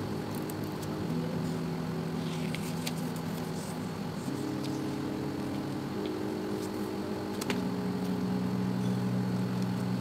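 Background music of slow, held chords that change every couple of seconds, with a few faint clicks of paper being handled.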